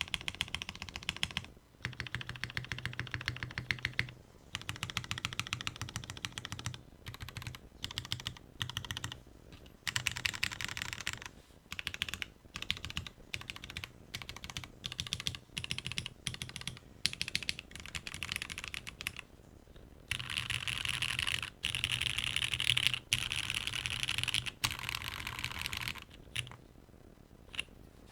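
Typing on a Bauer Lite mechanical keyboard with lubed and filmed Cherry MX Black Hyperglide linear switches on a polycarbonate plate and GMK ABS keycaps: rapid keystroke clicks with a low bottoming-out note, in bursts separated by short pauses. From about twenty seconds in the keystrokes come louder and denser, then stop shortly before the end.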